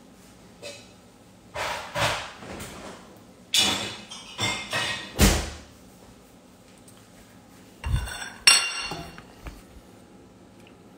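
Crockery and kitchenware being handled on a counter: a run of knocks and ringing clinks over the first five seconds or so, a pause, then two sharp clinks about eight seconds in as a ceramic plate is set down.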